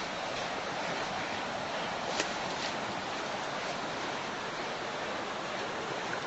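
Floodwater rushing in a steady, even wash of noise, with a single sharp click a little over two seconds in.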